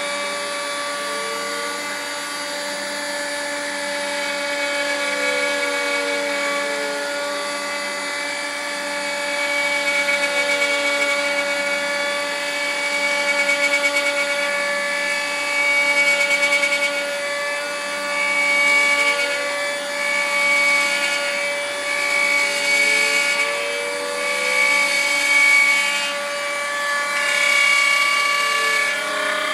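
Small variable-speed laminate router on a homemade CNC machine, running with a steady high whine while its bit cuts into a wooden board. Stepper motors driving the axes sing in gliding tones that rise and fall as the gantry speeds up and slows down. In the second half the cutting noise swells and fades every second or two.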